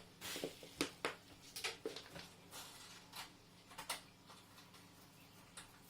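Faint scattered clicks and knocks, with a short rustle about a quarter second in, from someone moving about and handling things.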